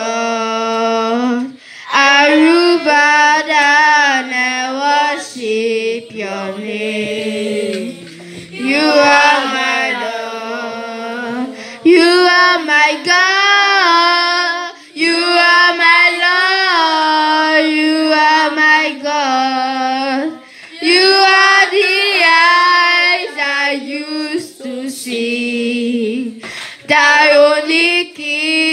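A girl singing a worship song into a handheld microphone, in phrases of a few seconds with short breaks and no instruments. Other children sing along behind her.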